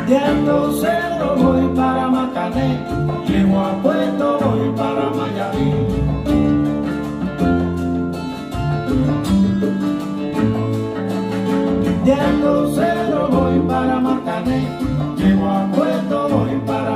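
A song with guitar and a singing voice, played back over a hi-fi system's floor-standing loudspeakers and heard in the listening room, driven by AGD Production Audion monoblock amplifiers.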